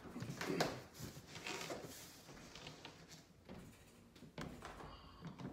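Irregular footsteps on a wooden floor with light scuffs and knocks against a large cardboard shipping box.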